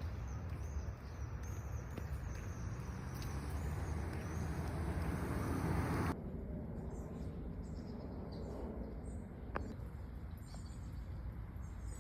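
Street ambience: the noise of traffic swells during the first half and cuts off abruptly about six seconds in. After that, small birds chirp in quick high notes over a quieter background, with one sharp click near the end.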